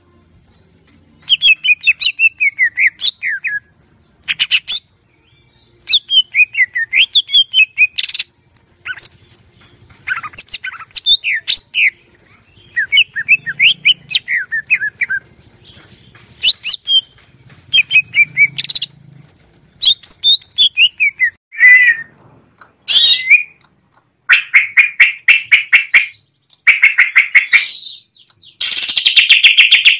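Green leafbird (cucak ijo) singing in bursts of fast, varied chattering and trilling phrases, each a second or two long, separated by short pauses. Near the end the notes run into an almost continuous rapid trill.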